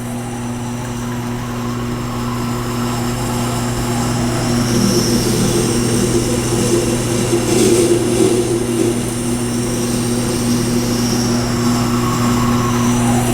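Tormek T-8 wet grinder running with a steady motor hum while a Leatherman multi-tool blade is ground on its stone. The grinding noise swells in the middle and eases off toward the end.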